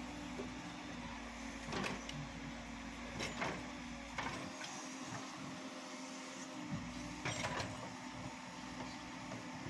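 Escorts backhoe loader's diesel engine running steadily as it works soil, with a few sharp clanks from the bucket and arm, the loudest about two, three and a half and seven and a half seconds in.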